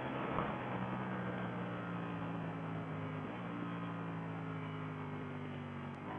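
Ducati Panigale V4S's 1103 cc V4 engine running steadily as the bike slows on a closed throttle. About three seconds in the note shifts with a downshift from third to second gear.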